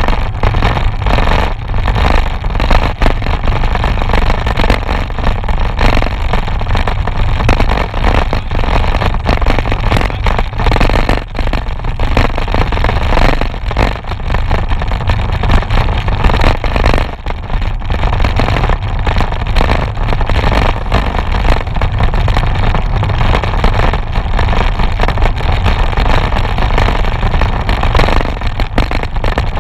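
Wind rushing and buffeting over the microphone of a handlebar-mounted camera on a moving road bike, a steady loud rumble that flickers throughout.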